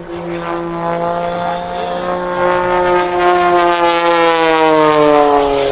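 Pitts S-1-11B aerobatic biplane's engine and propeller at high power, a loud, steady buzzing drone. Its pitch climbs slightly and then drops over the last second and a half as the plane passes.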